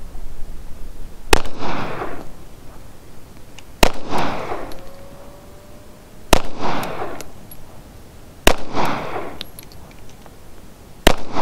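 Rock Island .45 pistol firing five single shots, about two and a half seconds apart, each crack followed by a trailing echo.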